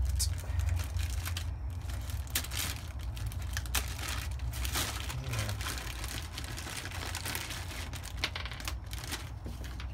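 Plastic packaging of a brake caliper rebuild kit crinkling and rustling as it is handled and opened, with irregular sharp crackles.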